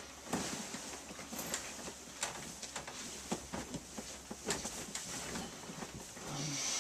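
Faint, irregular small clicks and rustles, with a soft hiss near the end.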